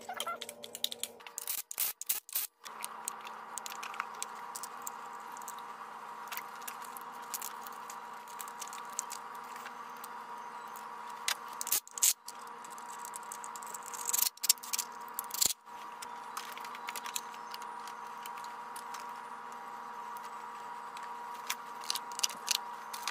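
Clicks, knocks and scrapes of hand work on top of an engine, as the plastic engine cover and the parts around the ignition coils are fitted onto the valve cover. A steady faint hum runs underneath.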